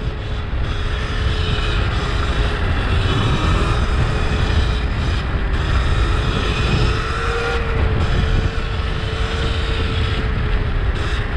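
Sur-Ron electric dirt bike with a 72-volt upgrade kit riding at steady speed: a steady motor whine that wavers only slightly, over a constant rush of wind and road noise on the microphone.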